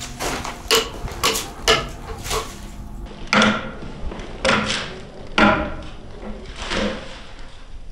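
Footsteps crunching over broken brick and debris, about eight irregularly spaced steps.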